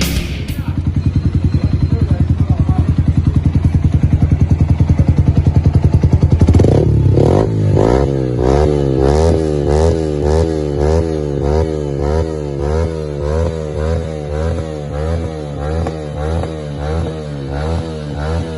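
Yamaha R15 single-cylinder engine breathing through an aftermarket full-system exhaust, held at raised revs for about six seconds. It then drops back to a lumpy idle whose note rises and falls about once a second.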